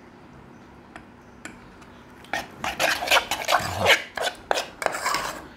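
A metal spoon scraping and clinking against the inside of a small stainless-steel pot as it stirs chicken pieces through a thick marinade, starting about two seconds in.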